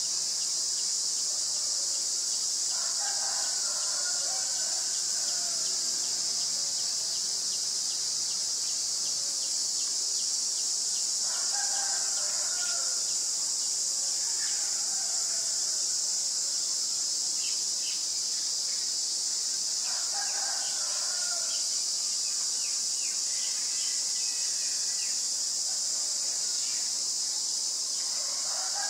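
A steady, high-pitched insect drone, with a bird call about two seconds long coming four times, roughly every eight seconds.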